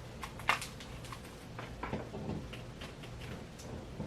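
Scattered light clicks and knocks of objects being handled, with one sharper knock about half a second in, over a faint steady low hum.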